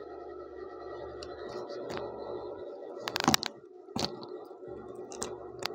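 Steady room hum with a few sharp clicks and knocks: a short, loud clatter about three seconds in, then single knocks about a second later and near the end.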